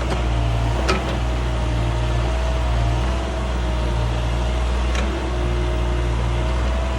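Caterpillar mini excavator's diesel engine running steadily under work, with a high whine that wavers slightly in pitch, as it grades and levels dirt. Two sharp knocks, about a second in and about five seconds in.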